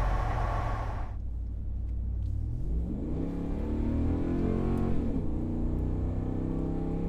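Ram 2500's 6.4-litre HEMI V8 exhaust through a MagnaFlow straight-through stainless muffler, blipped by hand. It drops from a high rev to idle in the first second, rises in one rev from about two and a half seconds in, falls back just after five seconds, then idles steadily with a deep tone.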